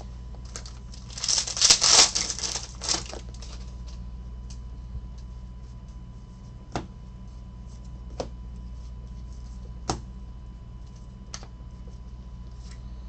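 Trading cards being handled and flipped through by hand: a loud rustling flurry between about one and three seconds in, then a few single sharp clicks as cards are slid off the stack, over a steady low hum.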